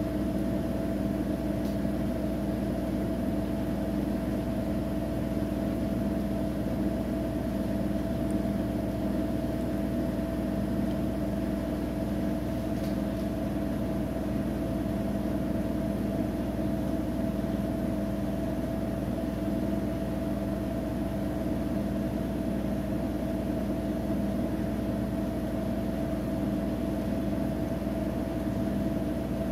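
Siemens iQ700 front-loading washing machine in its final spin, the drum turning at a constant high speed with a steady hum and whine that does not rise or fall.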